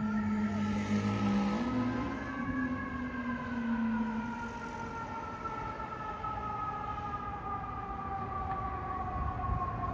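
FDNY fire engine's siren sounding as the truck pulls away, its wail sliding slowly down in pitch. A low steady drone, with a small step up in pitch, runs under it for about the first four seconds and then stops.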